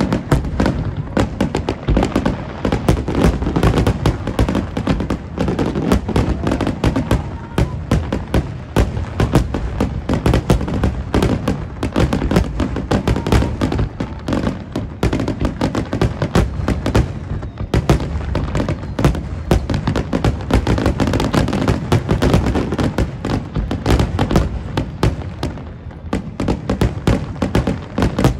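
Aerial fireworks shells bursting in a dense, continuous barrage of bangs, one after another with no pause, loud.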